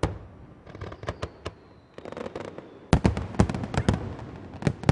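Aerial fireworks shells bursting: a sharp bang at the start, scattered crackling reports over the next two seconds, then a rapid cluster of loud bangs about three seconds in and another bang near the end.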